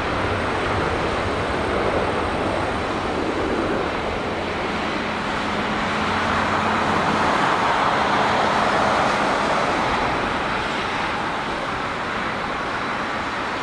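Rolls-Royce Trent 1000 jet engines of a Boeing 787 Dreamliner at takeoff thrust, a steady roar as the plane accelerates down the runway. The roar swells to its loudest about halfway through, then slowly eases as the plane moves away. A low hum underneath fades out partway through.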